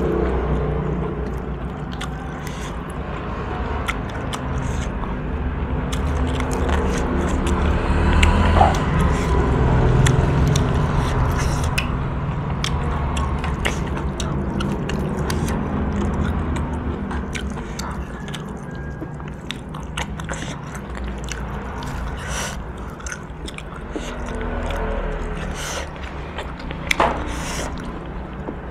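Close-miked eating sounds: chewing and wet crackling and clicking as gloved hands tear meat off boiled pork head bones, over a low steady rumble. A sharper click stands out near the end.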